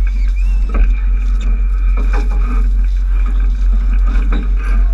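Steady low rumble of a tour boat under way on open water, with faint scattered passenger voices over it.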